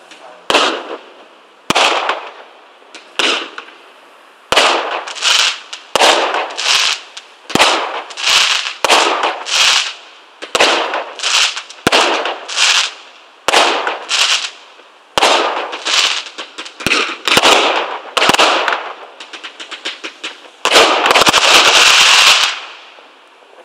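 Fireworks display: aerial shells bursting in a run of sharp bangs, one or two a second, each trailing off in echo. Near the end comes a quick rattle of small cracks and then a dense, loud crackling barrage that stops abruptly: the display's finale.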